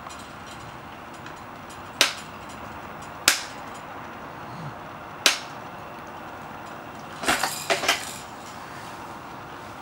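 Hard plastic toys being banged and knocked about by a baby: three sharp single knocks a second or two apart, then a short clatter of several knocks near the end.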